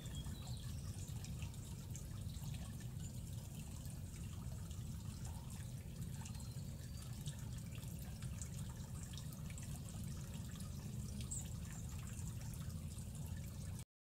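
Small solar-powered fountain pump trickling: water bubbling from the nozzle and dripping over rocks back into a plastic soda-bottle reservoir, faint and steady over a low rumble, cutting off near the end.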